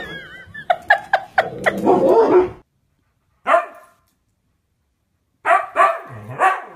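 Dogs barking: a run of quick, sharp barks in the first two and a half seconds. After a pause, a husky gives a single bark, then a quick series of barks near the end.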